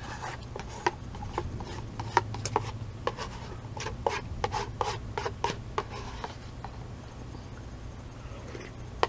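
Mouth sounds of eating bulgogi udon noodle soup: a quick run of short clicks and smacks for about six seconds, growing sparse near the end, over a steady low hum.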